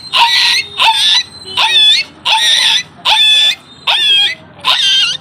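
A steady series of high-pitched yelping cries like a crying puppy, about seven in a row, each about half a second long, with a quick dip in pitch at the start of each.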